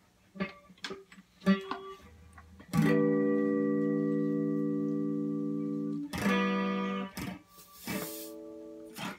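Electric guitar played without words: a few scattered string plucks and taps, then a note or chord struck about three seconds in and left ringing as it slowly fades, followed by two shorter strikes.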